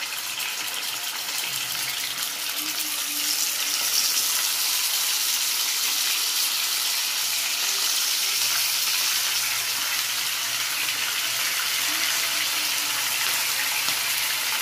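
Yellowfin tuna steaks, marinated in soy sauce and calamansi, sizzling as they fry in hot oil in a pan. The sizzle grows louder over the first few seconds as more steaks go in, then holds steady.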